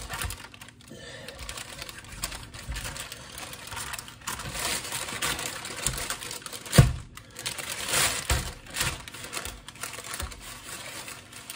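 Parchment paper rustling and crinkling, with light irregular taps, as a raw leg of lamb is handled and scored with a kitchen knife. One sharper knock comes about seven seconds in.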